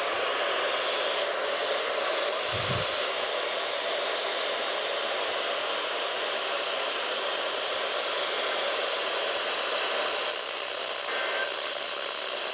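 Steady static hiss from a weather radio receiver, with a brief low thud about two and a half seconds in.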